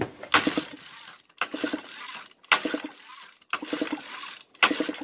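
Recoil pull-starter of a 1970s Volvo Penta Sail 90 9 hp two-stroke outboard pulled five times, about once a second, each pull spinning the engine over with a quick run of pulses. A compression gauge is fitted in place of the spark plug, so the engine is being cranked for a compression test, not started.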